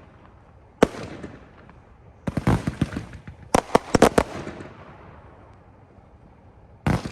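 Aerial fireworks from a consumer firework cake bursting overhead. A single bang comes about a second in, then two quick clusters of rapid reports at around three and four seconds, and another bang near the end. Each burst trails off into a rumbling echo.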